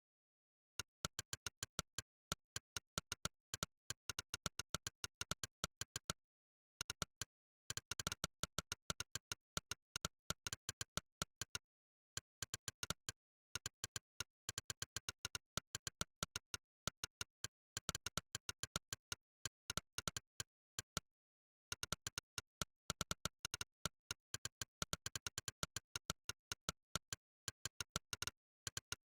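Monkeytype's synthetic 'click' keystroke sound, one short click for each key typed, coming in rapid runs of several clicks a second with a few brief pauses.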